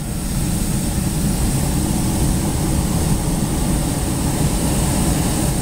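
Hot-air balloon's propane burner firing in one long, loud, steady blast. A burn like this keeps the envelope hot so the balloon holds or gains height.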